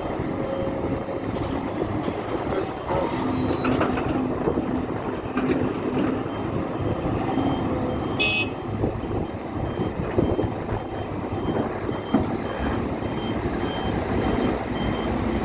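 Heavy diesel machinery running steadily as the Hidromek 500 excavator loads dump trucks. A short high-pitched sound comes about halfway through, followed by a faint reversing beeper that repeats evenly to the end.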